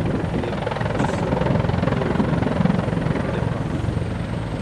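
Bell 412 helicopter flying close by, its rotor beating in a fast, steady chop with turbine noise underneath.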